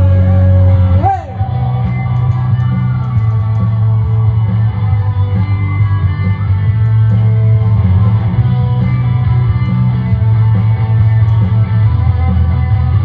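Rock song with a male voice holding a sung note that ends with a quick slide about a second in, then an instrumental break of electric guitar over a heavy bass line.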